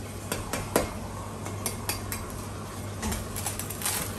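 Cleaver chopping through crispy-skinned deep-fried pork belly on a plastic cutting board: a series of sharp knocks and crunches, with metal tongs clinking. The loudest chop comes a little under a second in.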